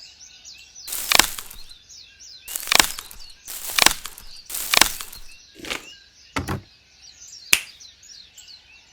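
About six sharp knocks, each a short crack or chop, spaced a second or so apart, with birds chirping faintly in the background.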